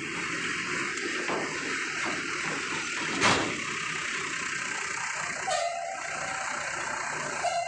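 A large coach bus's engine running as the bus rolls slowly past at close range, with one sharp metallic bang a little over three seconds in.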